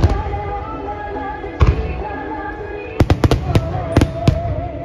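Aerial fireworks bursting over music: a single loud bang about one and a half seconds in, a quick cluster of several bangs about three seconds in, and two more near the end. A melodic piece of music plays throughout.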